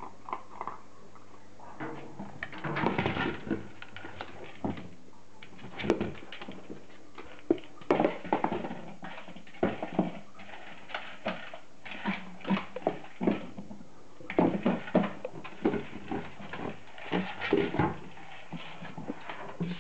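Beagles nosing and pushing a red rubber treat toy across a wooden floor: irregular knocks and scrapes of the toy on the boards, with sniffing.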